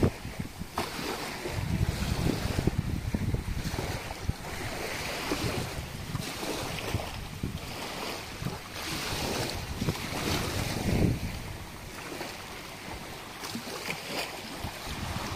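Small waves washing in over sand and rocks at the water's edge, swelling and falling back every second or two, with wind gusting on the microphone.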